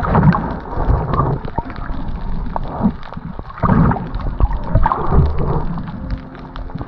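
Water sloshing and gurgling around the camera, with a low rumble that swells and fades every second or so.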